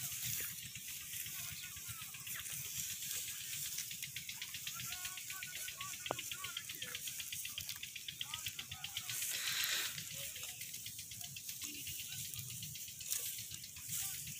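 Open-field ambience: a steady hiss with faint scattered chirps and a fine rustling flutter in the middle of the stretch, around cattle grazing on dry grass.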